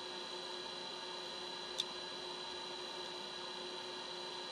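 Steady electrical hum with a faint high whine, and one short click a little under two seconds in.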